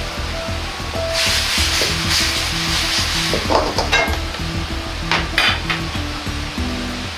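Walnuts bubbling and hissing in reducing sugar syrup in a wok, with a metal ladle stirring and scraping against the wok in a few short clinks. Background music with stepping low notes plays underneath.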